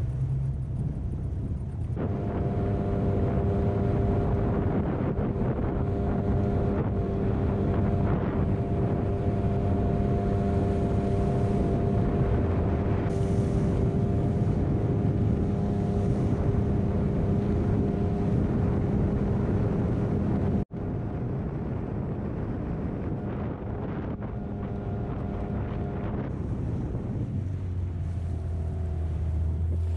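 Outboard motor running steadily, pushing an inflatable boat across the water. The sound cuts out for an instant about two-thirds through, and near the end the engine note shifts lower.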